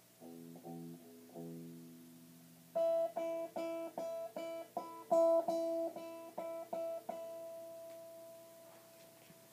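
Guitar played through a Fender Princeton tube amp: a few plucked notes, then a run of repeated picked notes, about two and a half a second, ending in one note that rings on and fades away.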